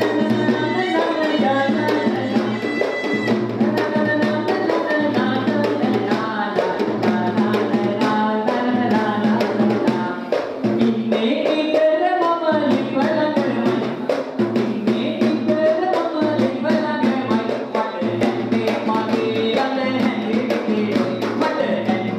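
Traditional Sri Lankan kolam dance music: fast, continuous strokes on a double-headed hand drum under a wavering, ornamented melody line.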